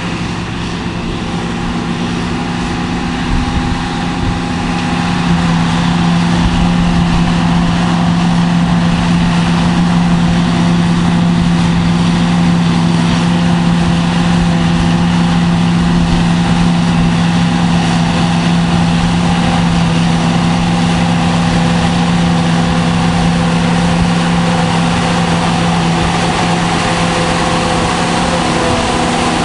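Heavy John Deere silage harvesting machinery running under a steady engine drone, growing louder about five seconds in and then holding steady.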